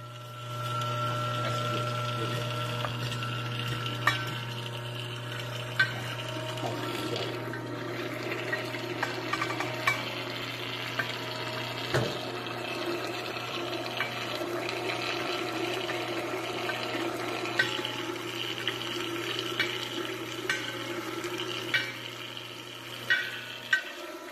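FELI NBM-200 grinding machine running with a steady low hum, its grinding discs churning diced yam into a wet paste, with occasional sharp clicks.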